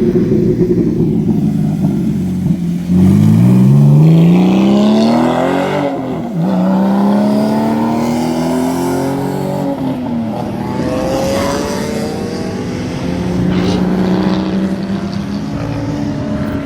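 Sports cars accelerating past on a racetrack, their engines climbing in pitch through the gears. A loud car comes through about three seconds in and shifts up near six seconds, then further cars follow, their engine notes rising and falling as they pass.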